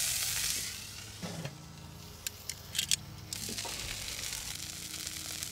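Filet steak sizzling in smoked beef tallow in a hot cast-iron skillet. About a second in the sizzle drops away as the grill lid goes down. A few light clicks follow, and the sizzling comes back a little past the middle.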